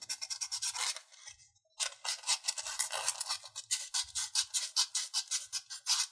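Folded fine sandpaper rubbed back and forth by hand over the edge of a layered watercolor-paper pendant: quick scratchy strokes at about five a second, with a short pause about a second in.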